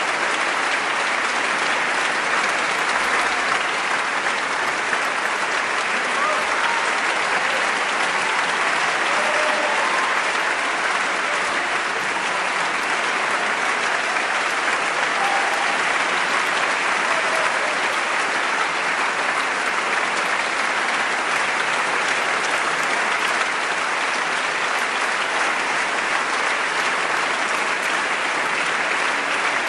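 Concert audience applauding steadily, with a dense, even clapping that holds throughout.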